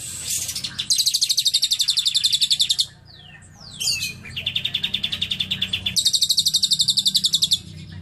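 Fischer's lovebird giving two long, rapid trills of high repeated notes, about a dozen a second. The first lasts about two seconds; the second starts lower and steps up in pitch halfway through. Short sliding chirps fall between them.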